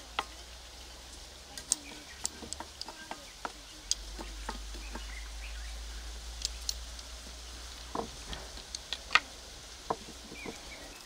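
Hot fat crackling and popping in a cast-iron frying pan as slap pap is pressed flat in it: irregular sharp pops, several a second at times, over a faint low hum.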